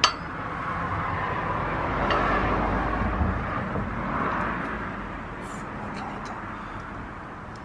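A vehicle passing by: a smooth rushing noise with a low rumble that swells to a peak a couple of seconds in and slowly fades away. A sharp click comes at the very start.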